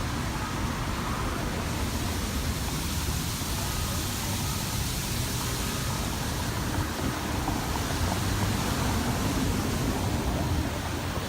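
Steady rushing outdoor background noise with no distinct events, a little louder in the last few seconds.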